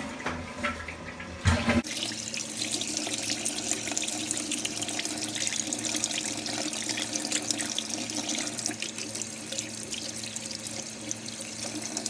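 Water running steadily from a tap into a sink, starting about two seconds in.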